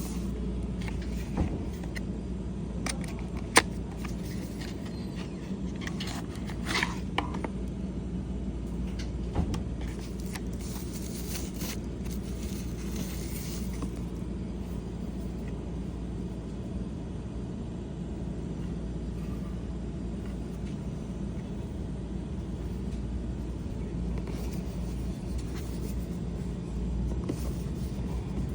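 Packaging being handled during an unboxing: scattered sharp clicks and taps, and a few seconds of rustling about ten seconds in. A steady low rumble runs underneath.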